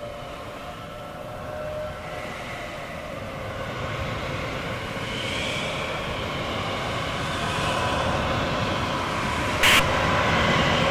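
Roar of an approaching tornado, the freight-train rumble growing steadily louder, with wavering siren tones above it. A short, sharp crash comes near the end.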